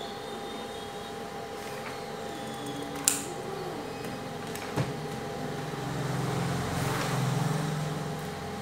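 Scissors and cardboard handled on a tabletop over a steady background hum: a sharp click about three seconds in and a lighter knock about a second and a half later. In the second half a low rumble swells and then fades.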